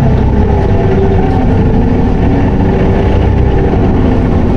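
Isuzu Erga city bus's four-cylinder turbo-diesel running, heard from inside the passenger cabin with the automated gearbox held in fourth in power mode. A steady low rumble carries a faint whine a little above it.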